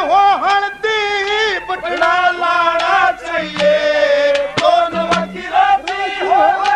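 A man sings a Haryanvi folk song loudly, in a strong open voice with long, wavering held notes. A few sharp percussion strokes fall under the voice.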